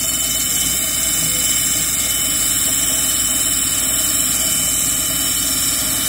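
Lapidary cabbing machine running, a plume agate cabochon on a dop stick held against its spinning wet grinding wheel: a steady motor hum under an even grinding hiss.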